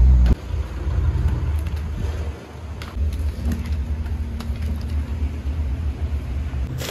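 A steady, fluctuating low rumble, with a few light knocks from coconuts shifting in a heap as they are raked down with a bamboo pole.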